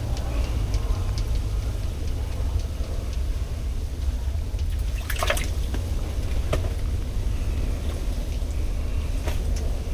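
Ice-fishing rod, reel and wet line handled over the ice hole: light clicks and water drips, loudest about five seconds in, over a steady low rumble.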